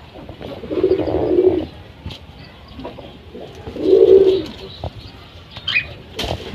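Lakha pigeons cooing: two low, rolling coos about a second long each, about three seconds apart. This is a puffed-up male's courtship cooing toward its mate.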